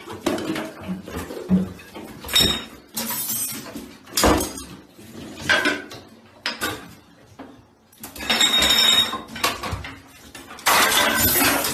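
A series of sudden clattering knocks and bangs, with a longer rattling clatter of about a second past the middle and another loud stretch near the end.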